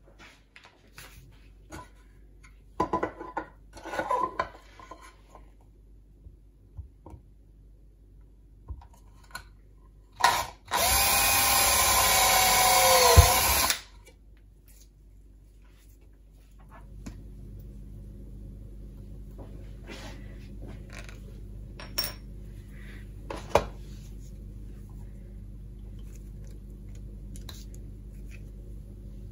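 Cordless power drill running in one burst of about three seconds, its pitch sagging as it comes under load near the end, drilling into a plastic enclosure. Light knocks and clicks of the plastic box being handled come before and after.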